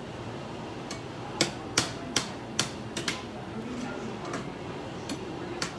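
Metal spoon knocking against the side of a stainless steel pot while ground beef is stirred, a run of about six sharp clinks starting about a second and a half in, with a few fainter taps later, over a steady low hiss.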